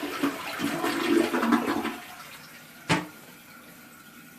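Toilet flushing through a newly rebuilt tank, its adjustable flapper on the maximum setting: water rushes down and dies away about two seconds in, a sharp click follows about a second later, and the fill valve then hisses quietly as the tank refills.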